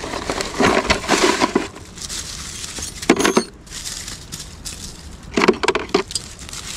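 Nails clinking and rattling in a metal canister as it is handled, in three short bursts.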